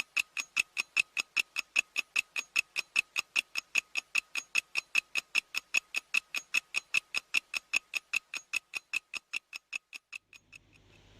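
Clock ticking steadily, about four ticks a second, each tick crisp and slightly ringing, fading out near the end.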